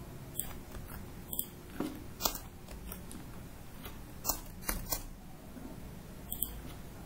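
Computer keyboard keys clicking in an irregular string of keystrokes as code is typed, with a steady faint low hum underneath.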